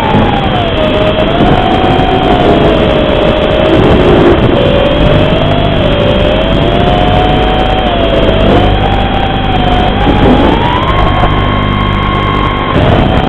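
Racing quadcopter's brushless motors (Cobra 2204 2300kv) spinning DAL 5040 three-blade props, a loud whine whose pitch rises and falls with throttle through the manoeuvres, over a steady hiss. The whine holds a higher steady pitch for a couple of seconds near the end, then drops.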